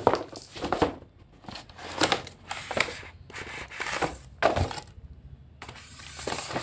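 Toy RC stunt car's packaging being cut and torn open by hand, with irregular rustling and scraping bursts and sharp clicks, a short lull, then a longer continuous stretch near the end.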